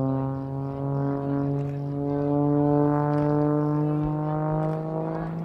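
Extra EA-330SC aerobatic plane's engine and three-blade propeller droning loudly with a steady note that rises slowly in pitch as the plane dives.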